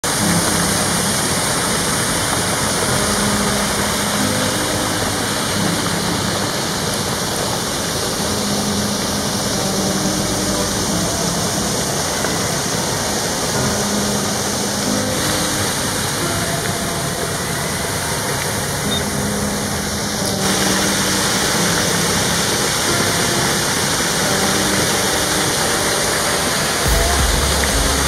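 Water gushing from several large pipe outlets and splashing down over stone steps into a pool: a steady, loud rush of falling water.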